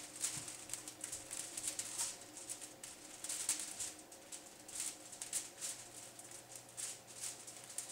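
Knife slicing open a raw bacon-wrapped pork loin on aluminium foil: an irregular run of short, soft crinkles and scrapes, a few a second, over a faint steady hum.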